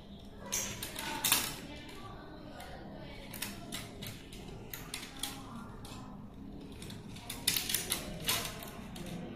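Hinged plastic splice tray of a dome fiber optic splice closure clicking and rattling as it is tilted and handled, with the light rustle of fibre loose tubes being routed under it. Irregular sharp clicks, with a quick cluster of them near the end.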